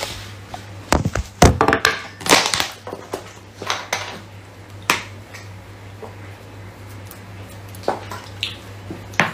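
Plastic drink bottle crackling and clicking as it is handled and opened, loudest in the first couple of seconds, then a few scattered clicks as it is tipped up to drink. A steady low hum runs underneath.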